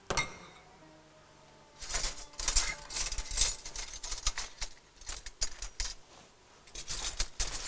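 A short knock, then from about two seconds in a run of irregular metallic clinks and clatters of kitchen utensils being rummaged through.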